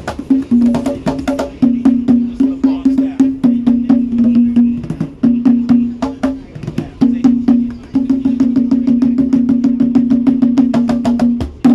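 Two conga drums played by hand in a fast, dense rhythm, rapid slaps and open tones over a ringing low drum note, stopping together on a final hit at the very end.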